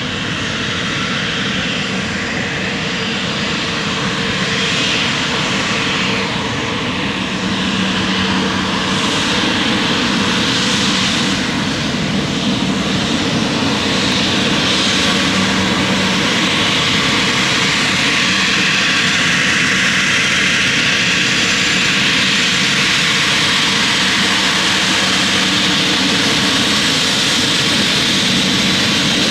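Jet airliner engines running. The Embraer ERJ-195LR's two General Electric CF34-10E turbofans make a loud, steady rushing noise over a low steady hum, growing gradually louder over the first half and then holding.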